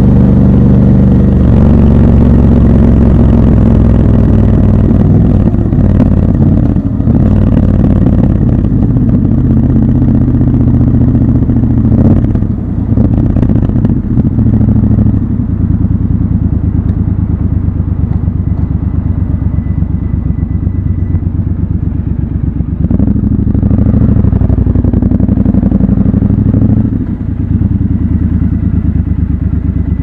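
Triumph Scrambler 1200 XC's parallel-twin engine running at low revs while the motorcycle is ridden slowly, with a few brief dips and changes in engine note partway through.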